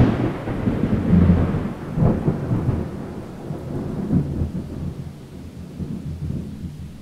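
Rolling thunder rumbling, swelling again about one and two seconds in, then slowly dying away.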